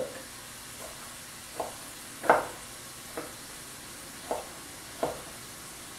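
Knife dicing bell pepper on a wooden cutting board: about six separate knocks of the blade hitting the board at uneven spacing, the loudest near the middle. Underneath is a steady faint sizzle of sausage frying in a skillet.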